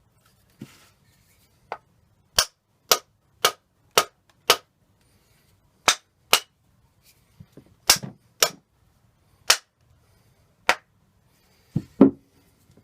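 Sharp, hard knocks of a tool striking the metal parts of a Lewmar 34 winch, about fifteen blows, briefly coming about two a second and then more spaced out, to drive a grease-stuck insert free.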